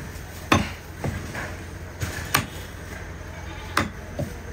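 Butcher's cleaver chopping goat meat into pieces on a wooden chopping block: about six sharp chops at uneven intervals, the loudest a little past the middle.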